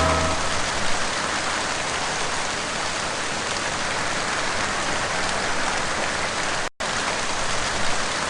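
Steady rain, an even hiss, as music dies away at the start. The sound cuts out completely for an instant about six and a half seconds in.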